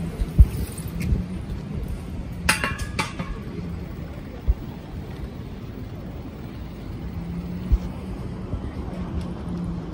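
A bicycle ridden over paving stones: a steady low rumble with occasional sharp bumps, and a short burst of metallic clinking and rattling about two and a half seconds in.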